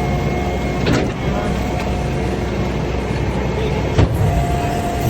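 Heavy vehicle engine running steadily, with a knock about a second in and a sharper one about four seconds in.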